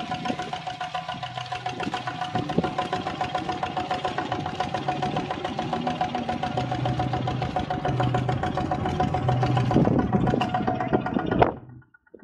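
Kubota ZT155 single-cylinder diesel engine of a two-wheel walking tractor running steadily while pulling a disc plough through a flooded rice paddy: a rapid, even pulsing with a steady high tone over it. The sound cuts off abruptly near the end.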